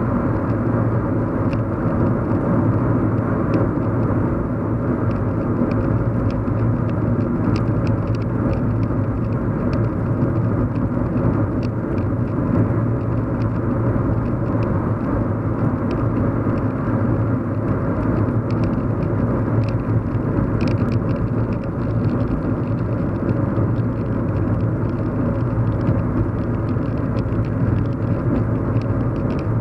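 Car cabin hum while driving: a steady low rumble of engine and road noise, with a few faint ticks.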